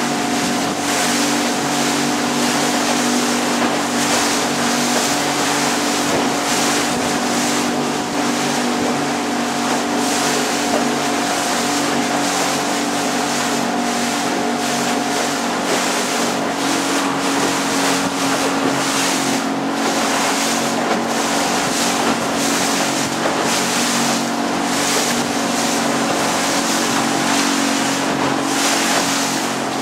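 Four-stroke outboard motor of a small open boat running steadily under way, its drone holding several steady tones. Over it, water rushes along the hull and wind gusts on the microphone.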